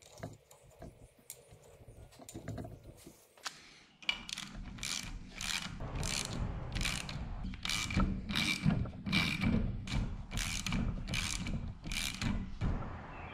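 Ratchet wrench clicking in repeated back-strokes, about two a second, tightening a steel hydraulic coupler nipple into a loader control valve. For the first four seconds or so there are only faint, light metallic clicks as the fittings are handled and started by hand.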